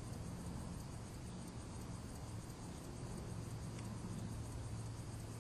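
Faint, steady background noise of a home audio recording: an even hiss with a low hum underneath and no distinct events.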